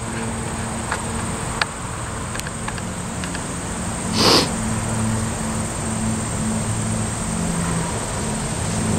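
MLW FPA-4 diesel locomotive's ALCO 251 prime mover running at low throttle, a steady low hum as the train rolls slowly up to the crossing. A short burst of hiss comes about four seconds in.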